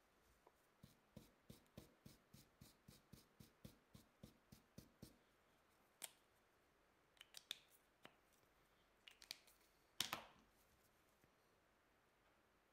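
Orange felt-tip marker stroked rapidly over a fly's synthetic fibres on paper, a quick run of short scratchy strokes, about three or four a second, for about four seconds. Then a few separate small plastic clicks as the marker is handled, the sharpest about ten seconds in.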